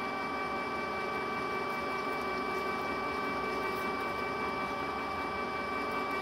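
Metal lathe parting off a spinning aluminium workpiece, the parting tool squeaking with a steady high-pitched tone over the running machine. It is the sign of a dry cut that needs a little lubricant such as WD-40.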